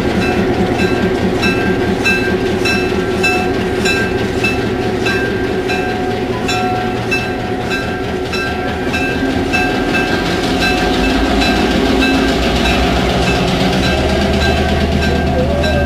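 EMD FP7 diesel locomotive running as it moves slowly, its 16-cylinder 567 engine throbbing, with a repeated ringing about two to three times a second from its bell. Near the end the engine's low note grows stronger as it takes more power.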